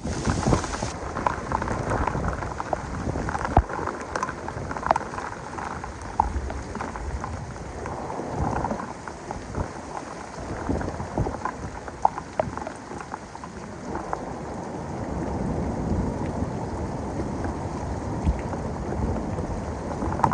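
Heavy thunderstorm rain pouring down, with many sharp drop and splash hits close by over a low, rolling rumble of thunder.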